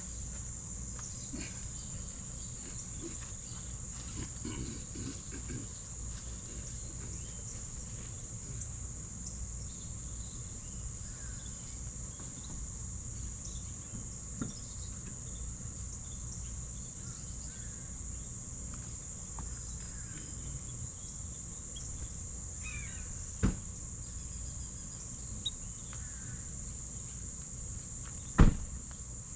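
Crickets trilling in a steady high-pitched chorus, with faint bird chirps scattered through it. Two sharp knocks come near the end, the second one the loudest sound.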